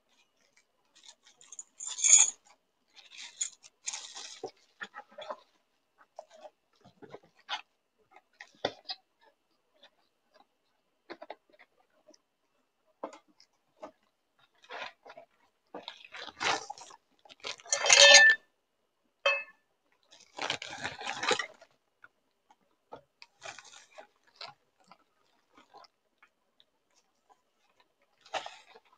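Unboxing handling sounds: small ceramic spoons clinking together, with scattered clicks and the rustle of bubble wrap and a plastic bag. Two louder clinks ring briefly, one about two seconds in and the loudest about two-thirds of the way through.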